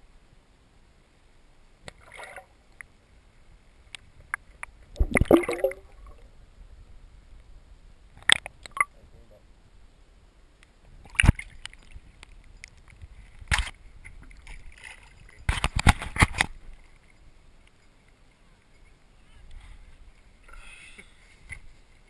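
Water sloshing and splashing with scattered sharp knocks and short bursts, the loudest about five, eleven and sixteen seconds in, as a hooked bowfin is worked at the surface beside a boat and lifted out of the water.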